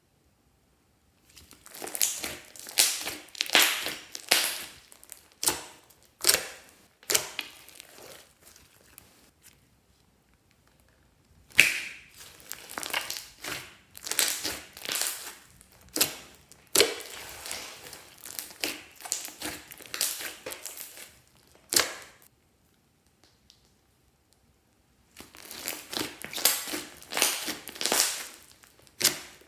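Glossy slime being squished and stretched by hand, making wet, sticky clicks and pops in quick bursts. The sound stops dead a few times, for about two to three seconds each, before starting again.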